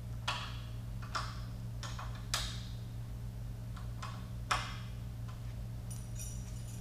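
About half a dozen sharp, irregularly spaced metal clicks and clacks from parts and hand tools being handled during a Power Pole light install, the loudest about four and a half seconds in. A faint high metallic jingle comes near the end, over a steady low hum.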